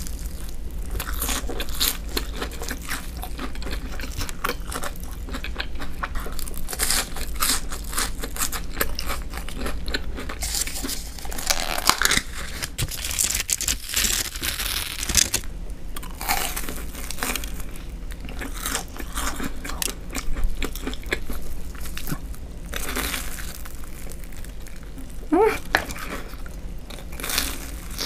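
Close-miked eating of crispy breaded deep-fried sticks: crunchy bites into the crumb coating and steady crackling chewing, with a few louder bites along the way.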